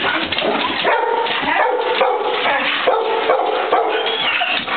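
Dogs whining and yipping in excitement at greeting their owner, a string of short, high, held whines with yips between them.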